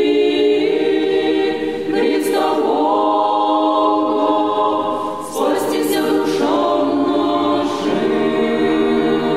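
Unaccompanied choir singing Russian Orthodox chant in slow, sustained chords, in phrases with short breaks about two and five seconds in.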